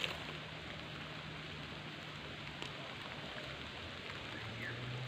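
Rain falling, a steady even hiss, with a faint low hum underneath.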